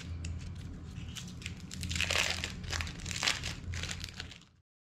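Thin plastic wrappers of processed cheese slices crinkling and rustling as the slices are peeled out by hand, in irregular bursts that are loudest around the middle. A steady low hum runs underneath, and everything cuts off suddenly near the end.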